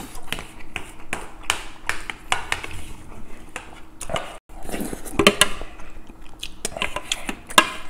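A wooden spoon scraping and knocking against a yellow metal lunchbox tray, a run of quick scrapes and clicks while the last rice is gathered up.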